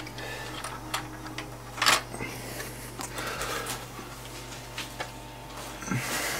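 Scattered light clicks and scrapes of the plastic housing, metal bracket and circuit board of an opened Pioneer CDJ-800 mk2 being handled and prised apart, with one sharper click about two seconds in, over a steady low hum.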